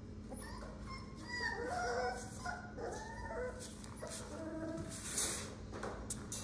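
Month-old American pit bull terrier puppies whimpering and yipping in a string of short, high cries, with shoe scuffs on concrete near the end.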